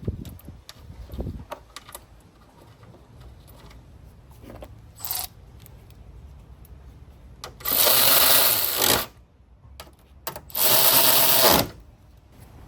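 Cordless power tool running in two bursts of about a second and a half each, the second following about a second after the first ends, with a shorter burst and a few light clicks of tools and parts before them.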